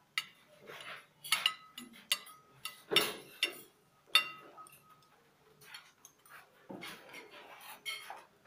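Metal serving spoon clinking and scraping on china plates while food is served, a string of sharp clinks, the loudest about a second, three seconds and four seconds in, each with a short ring.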